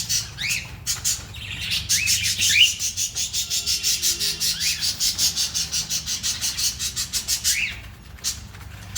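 Pet parrots chirping: a few short rising calls, then a fast, even run of high chirps, several a second, that stops shortly before the end.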